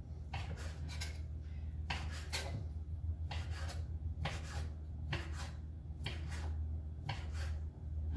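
A knife cutting strips of bacon into small pieces on a cutting board: short scraping strokes, roughly two a second, over a steady low hum.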